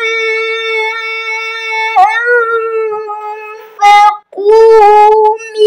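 A boy chanting Quran recitation in the melodic tilawah style, holding one long drawn-out note for about three and a half seconds, then singing two short phrases with brief pauses for breath.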